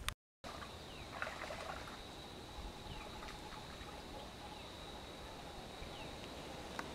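Quiet rural outdoor ambience: a steady high-pitched hum with scattered short, falling bird chirps, after a brief silent gap at the start.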